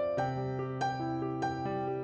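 Soft background music: keyboard notes struck at an even pace, about one every 0.6 seconds, over a low held note.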